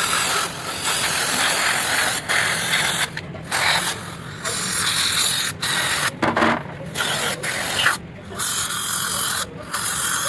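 Pressurised spray hissing in repeated bursts of a second or two, with short breaks between them, as parts are sprayed or blown clean.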